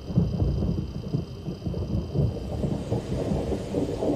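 Thunderstorm: low, rolling thunder rumbling continuously in uneven swells, with rain.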